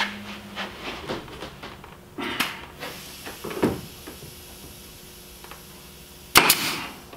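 Pneumatic fastener gun firing into a plywood trailer wrap panel: one sharp, loud crack about six seconds in, after softer knocks and handling of the tool and panel. The air pressure has just been turned up, and this shot drives the fastener home properly.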